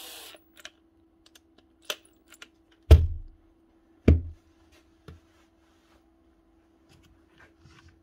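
Cordless drill parts being handled on a workbench: scattered small clicks and two louder knocks a little over a second apart, with a weaker one after, over a faint steady hum. A brief hiss right at the start.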